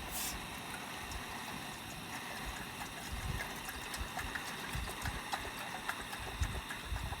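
Steady rush of water from a waterfall, with irregular low thumps and small scattered clicks over it from about three seconds in.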